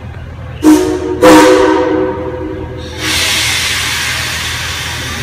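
Steam locomotive whistle sounding two blasts, a short one then a longer one, as a chord of several tones: the signal that the train is about to pull out. About three seconds in, a loud, steady hiss of escaping steam starts abruptly.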